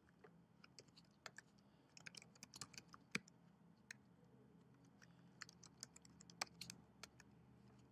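Faint typing on a computer keyboard: irregular, quick key clicks as text is entered field by field, with a louder keystroke about three seconds in and another about six and a half seconds in.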